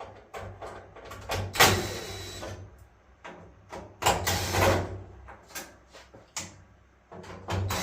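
Screws being taken out of a dryer's sheet-metal top panel: scattered clicks and rattles, with two longer, louder bursts of tool noise about one and a half and four seconds in.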